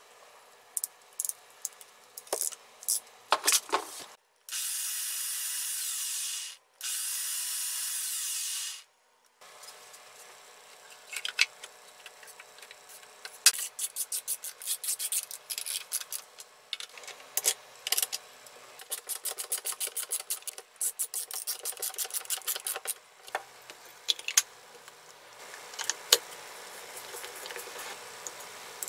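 Hand-tool assembly work on a portable band saw: sharp clicks of a crimping tool and small parts, then two steady bursts of hissing noise of about two seconds each. After that comes a long run of rapid light clicks and rubbing as screws are driven into the saw's housing and handle with a screwdriver.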